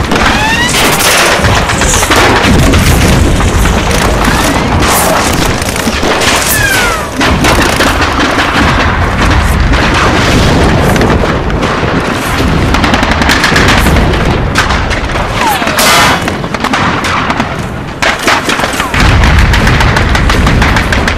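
Battle sound from a staged World War II scene: rapid gunfire and booming explosions, mixed with music.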